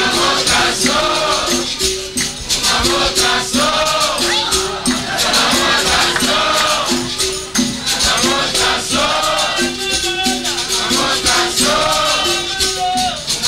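Capoeira roda music: a berimbau sounding a repeating rhythm on two alternating notes, with the shaken caxixi rattle keeping a dense steady beat.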